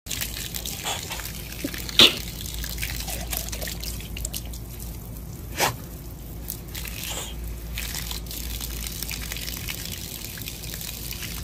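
Water running from an open garden hose end and splashing onto a toddler's skin and the ground, a steady trickling. Two brief sharp sounds cut through it, the louder about two seconds in.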